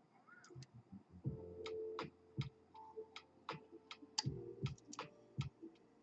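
Metal lock pick and tension wrench working the pins inside a pin-tumbler lock: an irregular run of small sharp clicks, with short spells of scraping.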